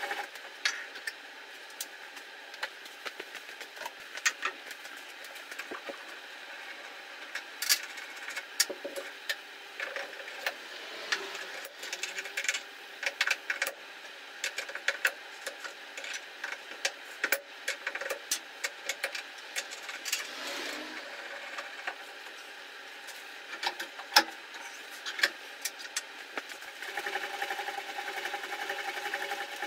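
Clicks and knocks of hand tools and a wooden workpiece being handled and set down on a stopped spindle moulder's metal table, over a steady background hum.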